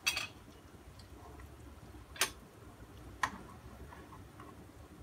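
Wooden chopsticks clicking against a frying pan while turning frying mushrooms: three short sharp clicks, one at the start and two more about a second apart.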